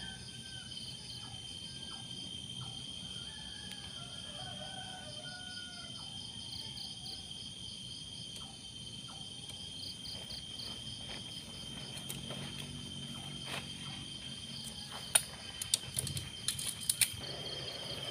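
Night insects chirping in the forest: a steady high trill with pulsing higher chirps over it. About fifteen seconds in come a few sharp clicks and knocks as tent gear is handled during packing up.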